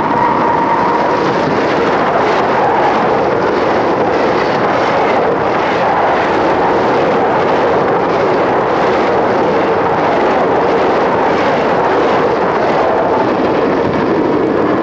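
Amtrak passenger train led by an E60 electric locomotive passing close at speed: a loud, steady rush of steel wheels on rail and moving cars that holds level throughout, recorded through a Super 8 camera's built-in microphone.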